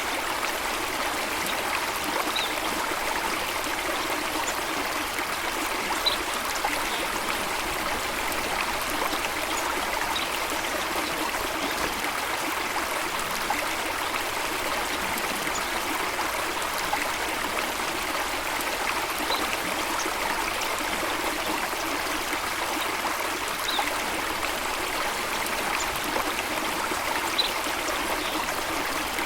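Flowing water running steadily, a continuous even rush like a stream, with a few faint, brief high chirps every few seconds.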